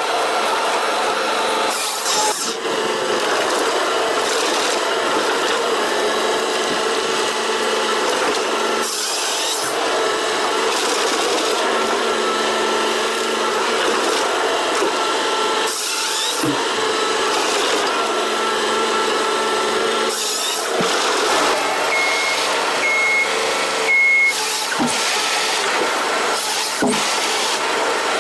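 Forestry harvester working: the engine and hydraulics run steadily while the single-grip harvester head feeds and delimbs logs, with several short sharp breaks in the noise as it cuts. Three short high beeps come about 22 seconds in.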